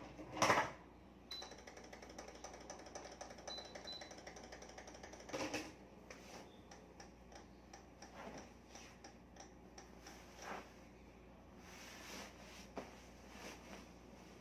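Cotton pillowcases rustling and swishing as pillows are shaken and worked into them, with a couple of louder swishes and a stretch of fast light ticking near the start.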